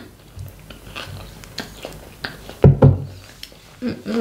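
Close-up chewing of a mouthful of sushi, with small wet mouth clicks and smacks scattered through. A louder knock comes about two-thirds of the way in, and a short hummed 'mm' at the very end.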